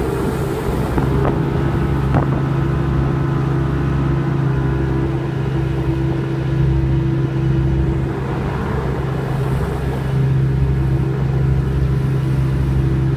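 Boat engine running steadily under way, holding an even pitch.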